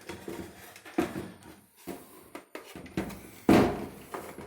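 A removed dryer panel being handled and set down: a string of irregular knocks and clatters, with the loudest thud about three and a half seconds in.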